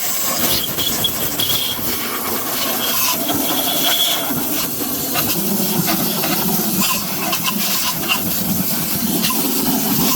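Compressed-air blowgun hissing steadily as it blows out the oil passages of a Volvo FH12 engine block, with a faint whistle coming and going.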